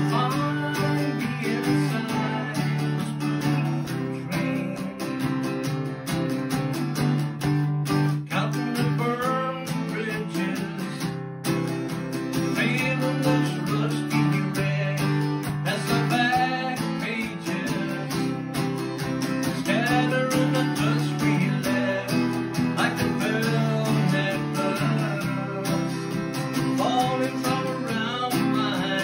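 Acoustic guitar being strummed and picked in a steady, continuous accompaniment.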